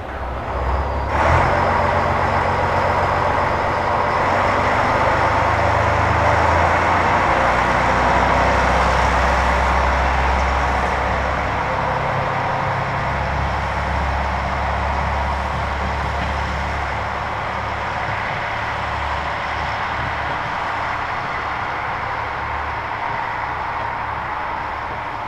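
JR Shikoku 2000 series diesel train running past: a steady rush of wheel and engine noise over a low engine drone, beginning abruptly about a second in and slowly easing toward the end.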